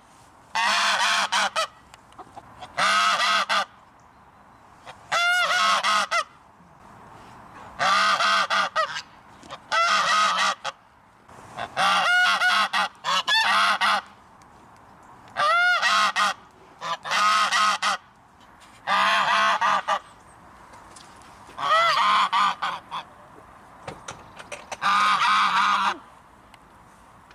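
Goose honking in repeated bouts of loud, nasal calls, about a dozen bursts spaced a second or two apart, each lasting under a second to about a second.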